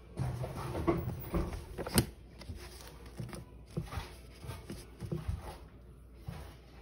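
Thin dictionary pages being flipped and handled, with soft rustles and knocks and one sharp tap about two seconds in.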